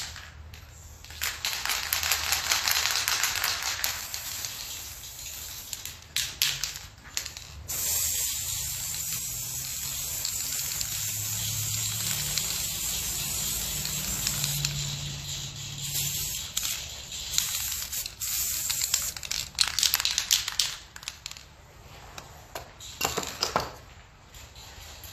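Aerosol spray-paint can hissing in bursts: a short spray early on, one long steady spray of about twelve seconds through the middle, and a few short puffs near the end.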